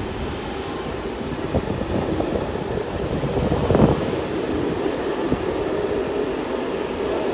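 Belgian MS96 (AM96) electric multiple unit pulling out and rolling past at low speed: a steady running rumble with a hum, broken by several sharp clicks, the loudest about four seconds in.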